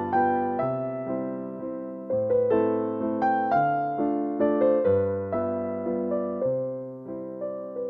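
Background piano music: notes struck and fading, with a new chord about every second or so.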